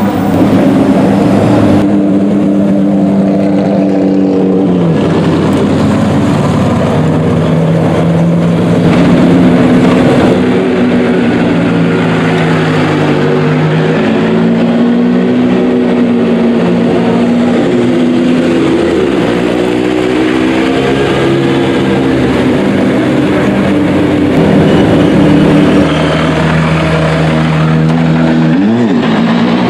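Race car engine running loudly in the paddock, its pitch rising and falling several times as the revs change.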